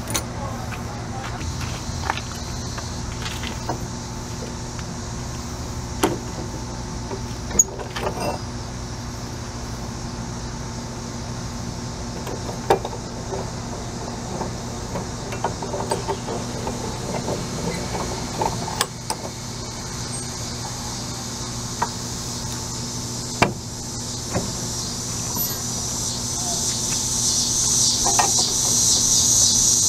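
Scattered sharp clicks and knocks of hand tools (pliers and cutters) working on a freshly sand-cast bronze piece clamped in a steel bench vise, over a steady machine hum. A high hiss grows louder over the last few seconds.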